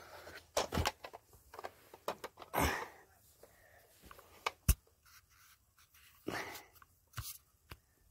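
Quiet handling noise: scattered soft taps and rustles as plush toys are moved by hand, with a couple of breaths and one sharper click a little past halfway.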